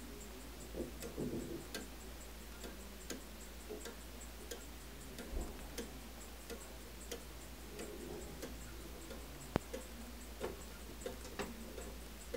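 Gilt brass eight-day fusee skeleton clock with a scissor escapement, ticking softly. About three quarters of the way through there is one sharper click.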